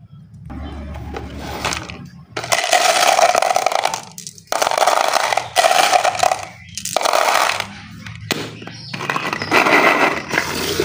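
Glass marbles rattling and clattering inside a plastic toy canister, shaken in about six loud bursts of a second or so each, with short gaps between them.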